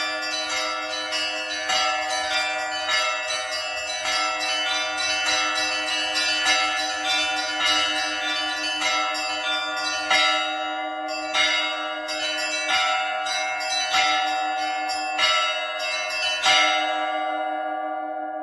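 Russian church bells being rung in zvon: a quick, busy pattern of small bells struck over the steady hum of larger bells. About sixteen and a half seconds in the striking stops and the bells are left ringing out and fading.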